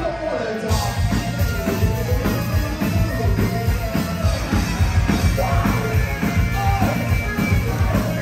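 Live rock band playing loud, with electric guitar, bass and a drum kit beating out a steady rhythm; the low end dips out for a moment right at the start, then the full band carries on.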